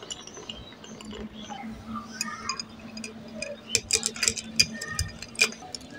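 A metal spoon stirring iced coffee in a tall drinking glass. In the second half it clinks rapidly against the glass and ice in a quick run of sharp clicks, after milk is poured in at the start.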